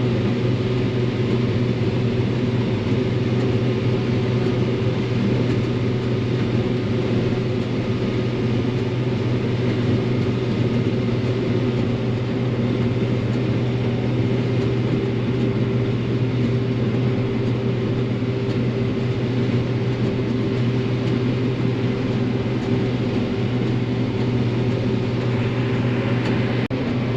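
Combine harvester running steadily while harvesting corn, heard from inside the cab: a constant engine and machinery drone with a steady hum.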